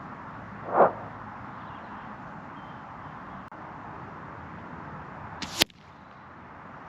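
Benjamin Armada .22 PCP air rifle firing once, a sharp crack about five and a half seconds in, over steady wind noise on the microphone. A short, loud, muffled burst comes about a second in.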